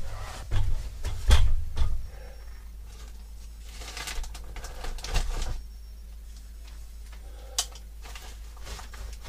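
Handling noises while working at a recessed-light hole in a wooden shiplap ceiling: a few low thumps early on, then rustling and scraping as the wiring is reached for and pulled down through the hole, and one sharp click late on.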